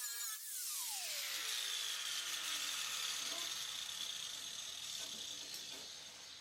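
Power tool spinning down after being switched off: its whine falls steadily in pitch over about two seconds and fades, ending with a sharp click.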